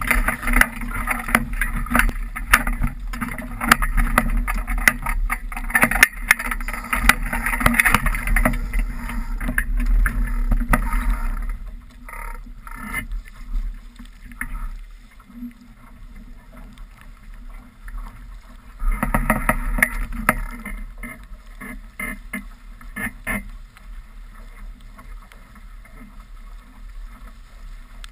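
Wind and water rushing past a sailing 420 dinghy, with many short knocks and splashes. It is loud for about the first eleven seconds, drops off, then comes back loud for a second or so about two-thirds of the way through.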